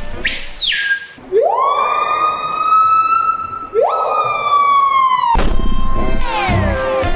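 A bird screaming. A short, high shriek in the first second is followed by two long, siren-like screams. Each scream rises quickly, holds steady for about a second and a half, then drops at the end. After about five seconds a different loud, busy sound takes over, with repeated falling pitches and low thumps.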